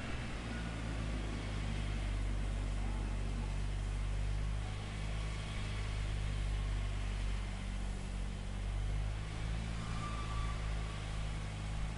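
Diesel engine of a microsurfacing paving truck running steadily at a constant speed, a low even hum with machinery noise over it.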